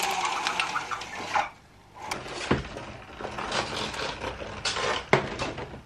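Window blinds and a window being handled: two spells of rattling and clattering with a few sharp clicks, the loudest about two and a half seconds in and again about five seconds in.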